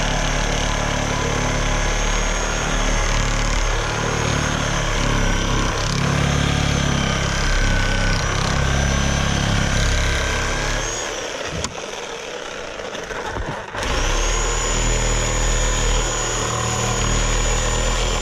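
Chicago Electric reciprocating saw running and cutting through a wooden board, with a steady high motor whine. Near the two-thirds point it stops for about two seconds, then starts again with a rising whine and cuts on.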